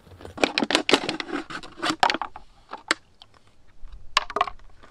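River stones clacking and crunching together in a rapid, irregular series of sharp clicks for about two and a half seconds, then a shorter clatter about four seconds in.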